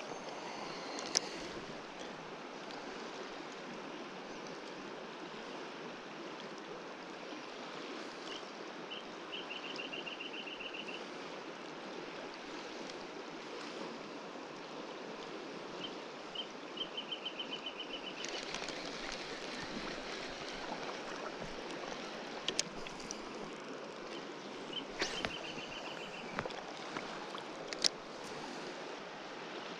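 Steady rush of a shallow river flowing over gravel, with a few sharp clicks and three short runs of rapid high-pitched ticking.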